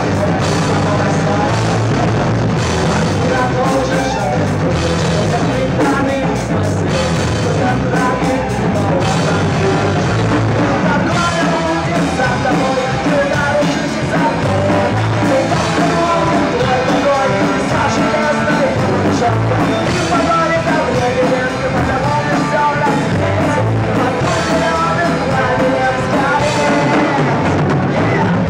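Rock band playing a song live, with a drum kit.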